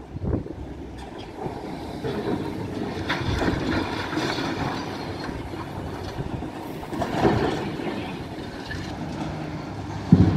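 Building demolition machinery at work: a steady mechanical rumble broken by irregular, heavier crunching knocks, about three of them spread over the span.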